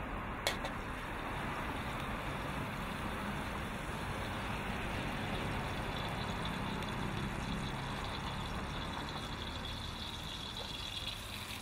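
Gas wok burner running steadily under a carbon-steel wok as cooking oil is poured in, with a single sharp click about half a second in. The oil's hiss grows stronger in the second half, and chopped chillies go into the hot oil near the end.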